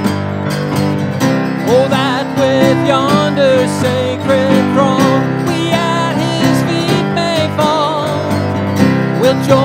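Hymn music on a strummed acoustic guitar. A melody line with vibrato comes in over it about two seconds in.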